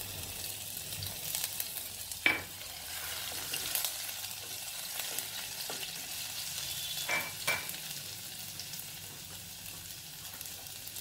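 Grated ginger and cumin seeds sizzling steadily in hot oil in a kadai, stirred with a spatula that knocks sharply against the pan about two seconds in and twice more near seven seconds.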